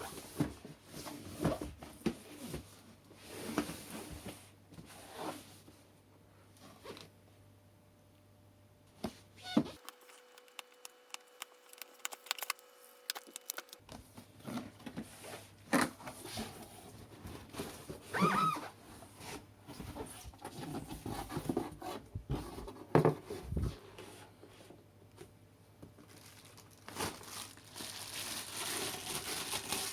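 Packaging being opened and handled: tearing, rustling and crinkling, with scattered knocks and clicks.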